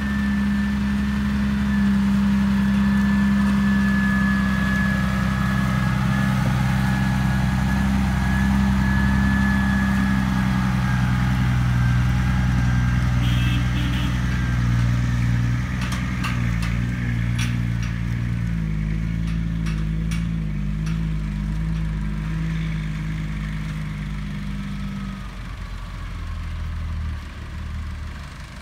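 Diesel engine of a sugarcane harvester running steadily, with a high whine over it. A run of sharp clicks and knocks comes in the middle. Near the end the engine note drops and the sound fades.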